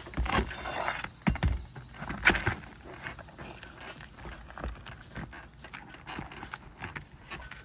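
Metal flat bar knocking and scraping under asphalt roof shingles while prying out a nail that is still holding on. A few sharp knocks in the first couple of seconds, then quieter scraping and light taps.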